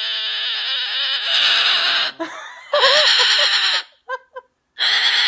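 Umbrella cockatoo screaming: long, harsh, loud screeches, one running through the first two seconds, another about three seconds in, a couple of short squawks around four seconds, and another long scream starting near the end.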